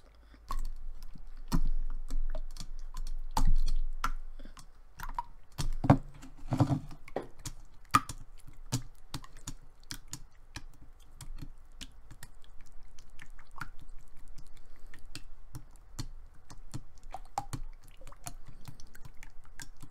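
Fingers pressing, poking and patting a thick, jiggly store-bought cookie-dough slime with little rubber chocolate-chip pieces, making irregular sticky clicks and squishes, several a second.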